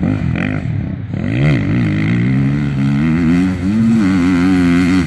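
Enduro motorcycle engine revving as the throttle is worked through a dirt course, its pitch dipping and climbing. About a second and a half in it swells louder and then holds a high, wavering note.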